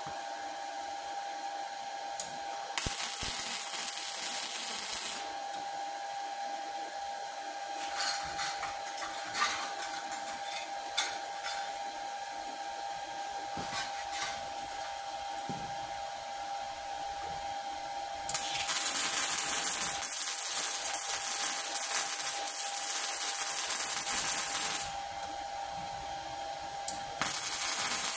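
Arc welding rebar to a steel stand. There is a crackling, hissing arc for a couple of seconds near the start, several brief arc strikes in the middle, and a longer bead of about six seconds later on, with another short burst at the very end. A steady hum sits underneath.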